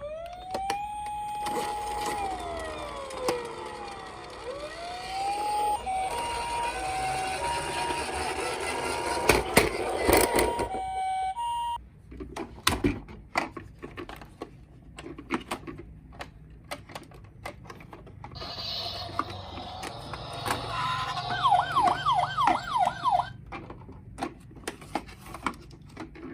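Electronic siren sounds from toy ambulance and police minicars. A siren rises and falls, then gives way to an alternating two-tone call that cuts off suddenly about halfway through. Clicks and knocks follow, then a fast warbling siren near the end.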